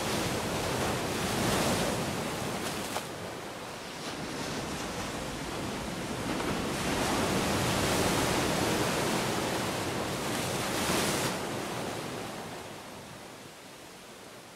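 Ocean surf washing onto a beach: waves swell and break in slow surges, with the sound dying down near the end.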